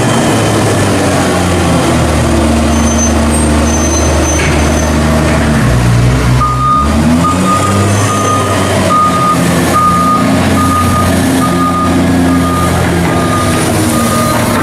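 Heavy diesel loading machine engine running hard. Its note dips and shifts about six seconds in as it changes direction, and then its reversing alarm beeps steadily, about twice a second.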